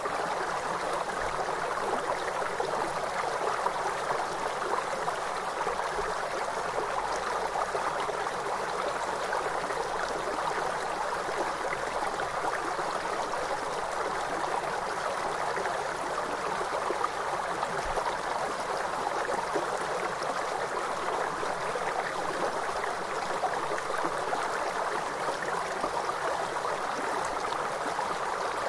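Flowing river water: a steady, even rush with no change in level.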